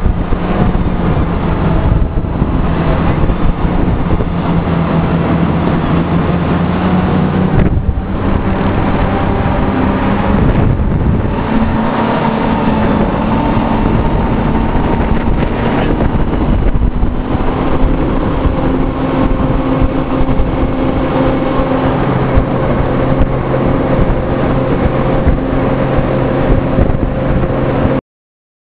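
Tractor engine running under load as it hauls a boat out of the surf and up a gravel beach, its steady note shifting in pitch a few times.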